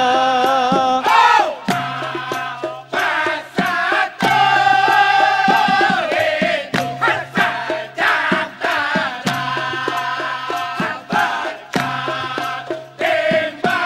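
Dikir barat chorus of men singing together in long held phrases, a second or two each with short breaks, over regular percussion strikes.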